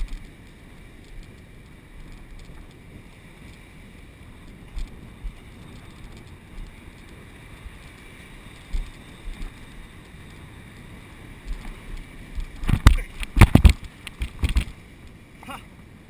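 Surf surging over rocks with wind buffeting the action camera's microphone. A little over twelve seconds in, a short run of loud splashes and knocks lasting about two seconds, as foaming water washes around the camera.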